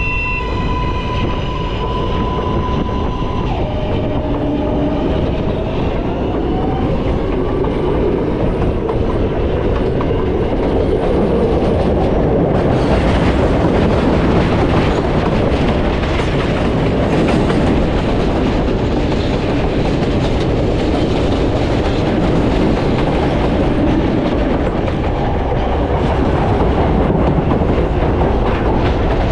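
New York City L subway train running, heard from inside the car. In the first few seconds the propulsion motors whine in stepped, rising tones as the train picks up speed. After that comes a steady rumble with the clatter of the wheels on the rails, a little louder and brighter from about twelve seconds in.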